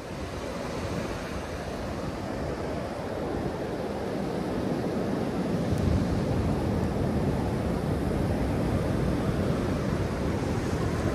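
Ocean surf washing up a flat, wet beach, with wind noise on the microphone. The sound swells in over the first few seconds, and the low wind rumble grows stronger from about halfway.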